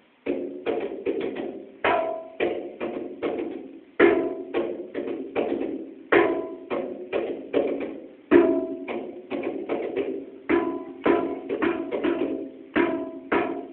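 Tabla drums being played: quick strokes ringing out with a clear pitch, and a strong accented stroke about every two seconds marking a repeating rhythmic cycle.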